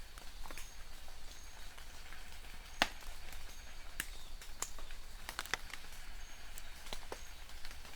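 Scattered raindrops tapping as separate sharp ticks at irregular intervals, the loudest about three seconds in. A faint high chirp repeats about once a second.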